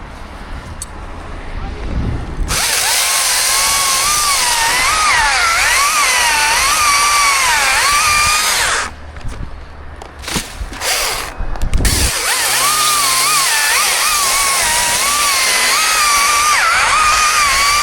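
Chainsaw running at full throttle, its pitch wavering up and down as it cuts through wood under load. It starts a couple of seconds in, drops away for a few seconds midway, then runs again.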